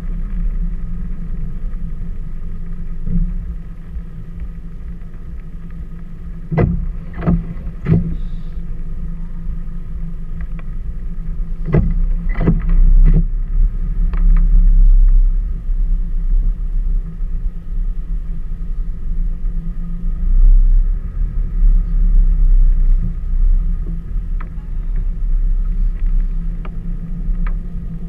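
Low, steady rumble of a car driving slowly on a gravel road, heard from inside the cabin. Two quick runs of three sharp knocks come about a quarter and then nearly halfway through.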